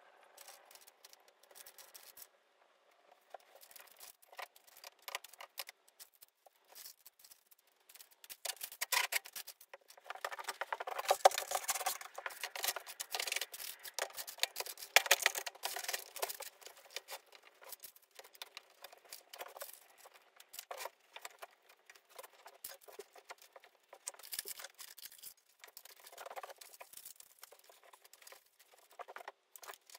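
Faint handling sounds of a cutting-board glue-up: a glue brush scratching over hardwood strips, then knocks and rattles of parallel clamps being slid on and tightened, loudest in the middle. Near the end comes soft rubbing as a cloth wipes off glue squeeze-out.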